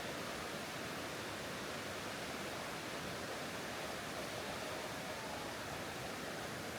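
Steady rushing of water, such as a mountain river or waterfall, an even hiss-like roar with no breaks.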